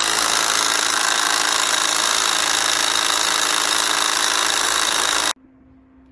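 Cordless impact wrench hammering steadily as it drives a C-clamp screw against a seized piston wrist pin to press it out. The rattling cuts off suddenly about five seconds in.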